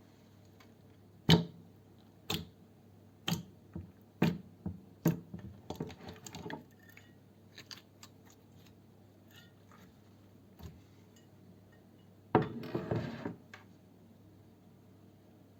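Slime being handled, making sharp pops about once a second, then runs of crackling, with a denser crackly stretch near the end.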